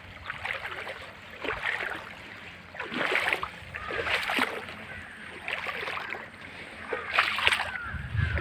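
Footsteps splashing through a shallow, pebble-bottomed stream, with irregular sloshing steps every half second to a second.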